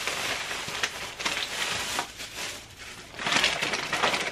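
Takeout food packaging crinkling and rustling as it is handled, with many small sharp crackles, louder near the end.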